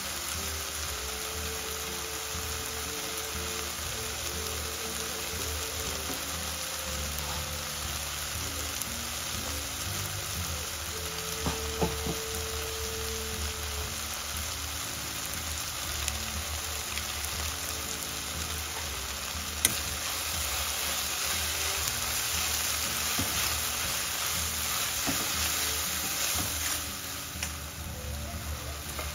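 Chopped onions and tomatoes sizzling as they fry in oil in a steel pan, a steady hiss that grows somewhat louder in the second half. There are a couple of sharp taps partway through.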